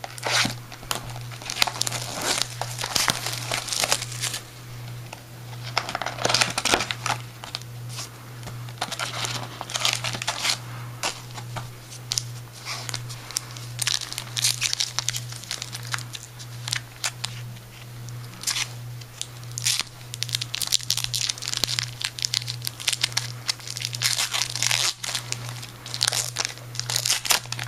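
Trading card packs being torn open and their wrappers crinkled by hand, in irregular bursts of rustling and crackling.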